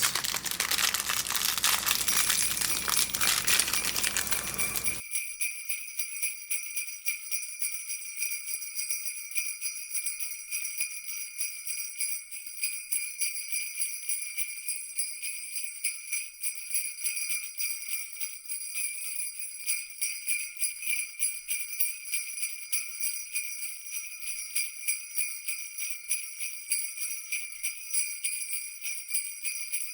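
Crinkling, rustling noise that cuts off suddenly about five seconds in, then jingle bells shaking in a steady rhythm, as in Christmas background music.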